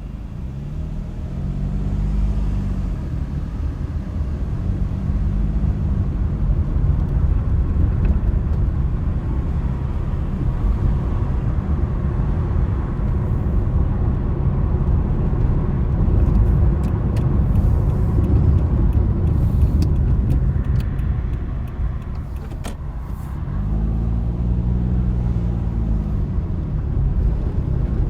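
Car driving, with a steady low rumble of road and wind noise. The engine note rises and falls three times: near the start, about five seconds in, and near the end.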